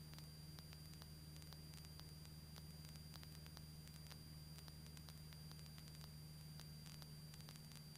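Near silence: the cockpit intercom audio feed carries only a faint steady low hum with a thin high whine and scattered faint static clicks.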